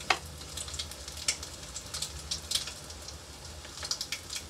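Hot oil sizzling and crackling with irregular small pops as a besan-batter-coated boiled egg deep-fries on a low flame, with a sharp click right at the start.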